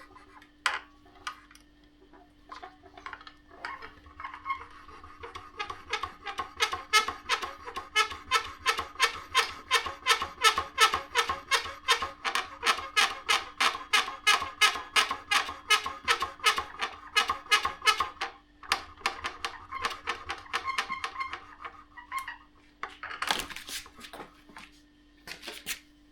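Freeboy J15 Max creaking and crackling in a fast, even run of short squeaks, about three a second, over a low steady hum. Near the end come a few sharper crackles. The noise is the extraneous creak the owner wants to show as a fault.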